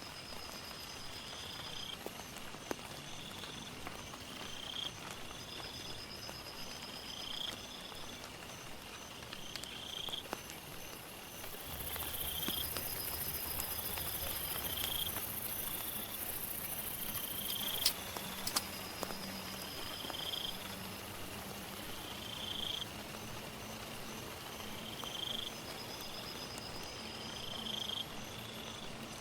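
Insects calling in a steady chorus: a short chirp repeating about every second and a bit, with a faster pulsed call higher up. A high buzzing joins for about six seconds near the middle, low droning calls come in during the second half, and a few sharp ticks fall over a faint patter.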